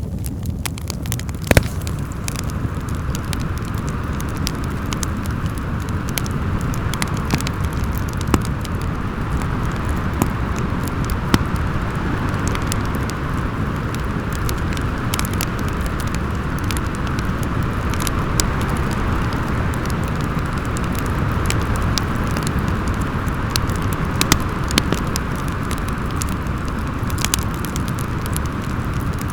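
Wood fire crackling in a fireplace, with sharp pops scattered irregularly, over steady storm wind.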